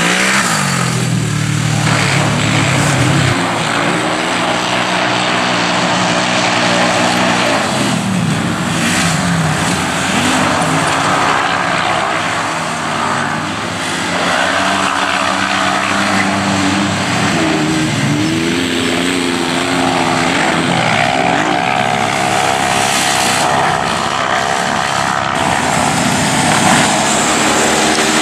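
Side-by-side UTV race engines revving hard, pitch climbing and dropping again and again as the cars accelerate, shift and ease off through the course.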